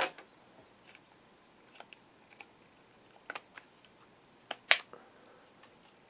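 Scattered light clicks and taps of a Holy Stone M68 toy quadcopter's hard plastic body and prop guards being handled. The sharpest click comes about four and a half seconds in.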